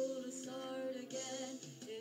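Background Christmas music with held sung and played notes.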